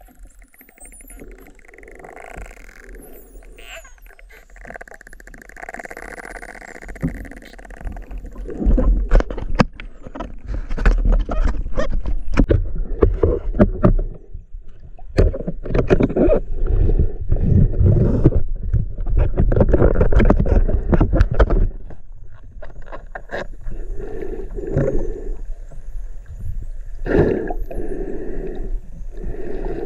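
Underwater sound of spinner dolphins clicking, with high gliding whistles in the first few seconds. From about eight seconds in, a freediver's loud, deep breaths take over, surging repeatedly near the end.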